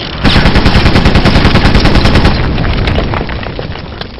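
A burst of rapid automatic gunfire sound effect, starting about a quarter second in, running for about two seconds and then trailing away.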